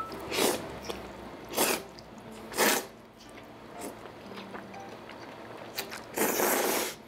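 A person slurping curry noodles: three short slurps about a second apart, then a longer slurp near the end.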